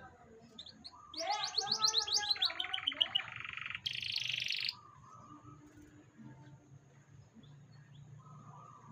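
Canary singing: about three and a half seconds of rapid repeated notes in quick trills, ending in a fast, buzzy high trill.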